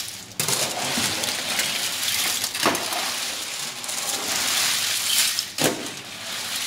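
A large mass of mussel shells clattering and rattling as they are stirred with a long metal paddle in a stainless steel braising pan, with two sharper knocks of the paddle a few seconds apart.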